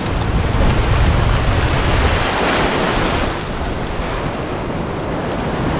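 Sea surf breaking and washing up a sandy beach. A wave's rush swells about half a second in, peaks near the middle and falls away, with wind buffeting the microphone.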